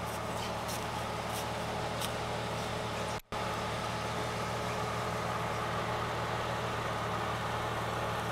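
Off-road vehicle engine running steadily at low revs, with a brief break about three seconds in.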